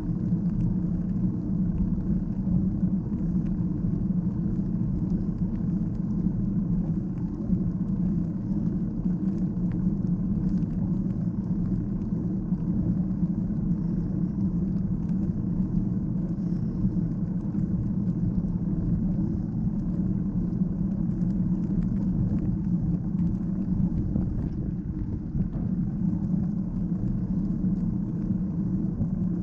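Steady low rumble of a bicycle ride on a paved path: wind buffeting the action camera's microphone and tyres rolling over asphalt.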